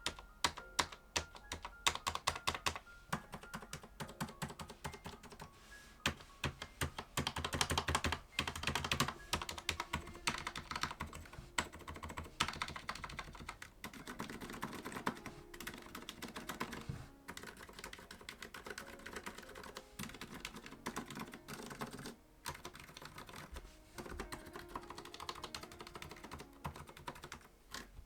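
Keystrokes on a mechanical keyboard with Cherry MX Silent Red switches: irregular, muted clacks as the function keys and the larger stabilized keys are pressed, with a quicker flurry of strokes partway through.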